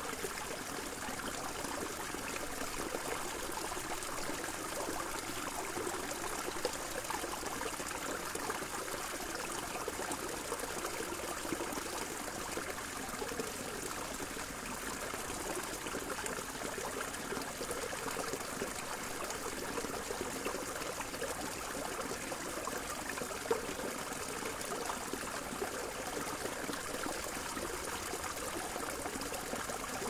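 Small shallow stream trickling over rocks, a steady flow of water with a few brief clicks.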